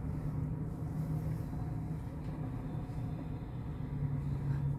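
Double-stack intermodal freight train's well cars rolling past, a steady low rumble of wheels on rail.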